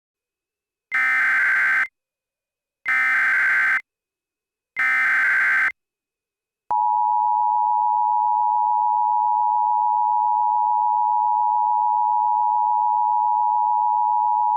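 Emergency Alert System SAME header: three short, buzzy data bursts about a second apart, then the two-tone EAS attention signal (853 and 960 Hz together) held steady for about eight seconds. The header and attention tone are the signal that a new emergency alert message is about to begin.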